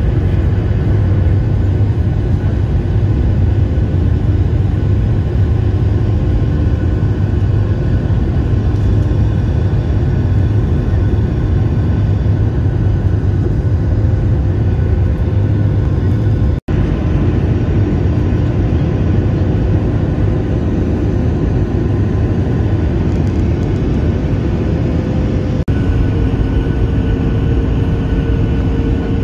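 Airliner jet engines heard inside the cabin by a window over the wing, climbing out after takeoff: a steady loud roar with a low hum and a few faint steady whines. The sound drops out briefly a little past halfway, and the whines shift slightly near the end.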